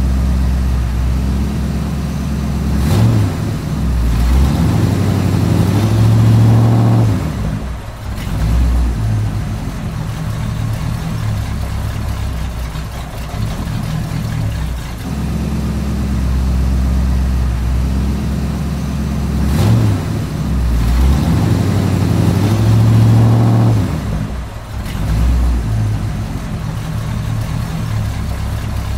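Simulated heavy diesel engine sound of radio-controlled construction models, idling steadily and revving up and back down twice, about 16 seconds apart.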